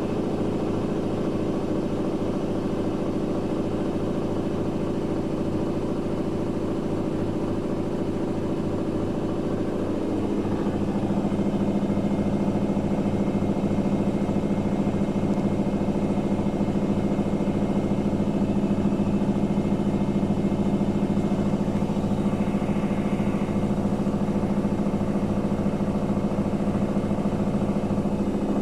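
Daewoo DWD-FT1013 front-loading washing machine spinning at 800 rpm with an unbalanced load, its motor and drum making a steady hum. About ten seconds in, the main tone drops in pitch and the machine gets a little louder.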